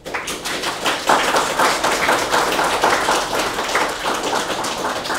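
Audience applauding: many hands clapping at once, swelling about a second in and tapering off near the end.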